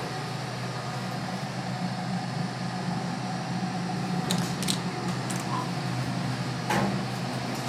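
Otis elevator car with a steady low hum, two short clicks about four seconds in as the floor-2 call button is pressed, and a sharper knock near the end.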